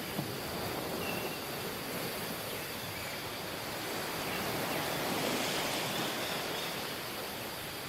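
Surf washing onto a tropical beach: a steady rushing of waves that swells and eases gently.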